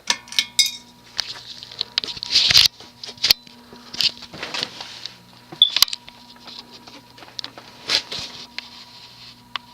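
1982 Evergo Roma ceiling fan's cast-iron motor running on its lowest variable-speed setting with a steady electrical hum. Irregular clicks and taps sound over it throughout.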